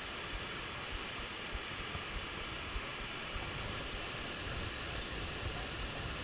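Steady rushing noise with low, irregular wind buffeting on the microphone.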